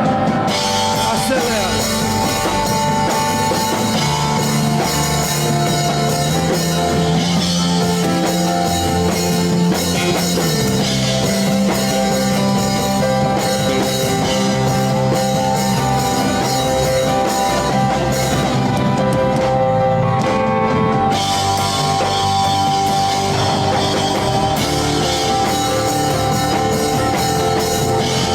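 Loud band music, rock-style, with guitar and drum kit, playing steadily throughout.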